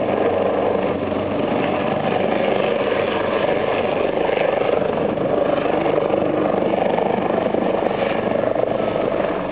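Turbine helicopter flying a low display pass overhead: a steady, loud rotor and engine noise.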